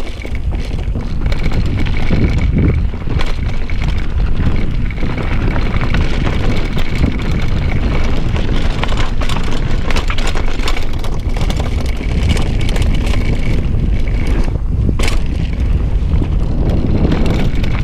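Mountain bike riding over a trail, with wind buffeting the microphone in a steady low rumble and tyre and trail noise beneath it. One sharp knock comes about fifteen seconds in.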